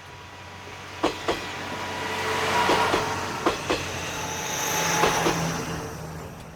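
A two-car diesel railcar train passing, its wheels clacking over a rail joint in four pairs of clicks, one pair per bogie. The running noise swells and fades as it goes by, with a faint wheel squeal.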